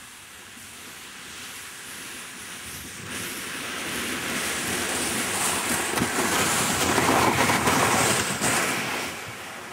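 Kayak hull sliding down a snowy slope, a hissing scrape over the snow that grows louder as it approaches. It is loudest as it passes close about seven to eight seconds in, then fades.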